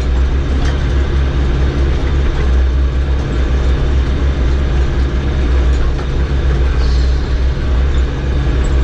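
Farm tractor's diesel engine running steadily, a deep even drone with no change in speed.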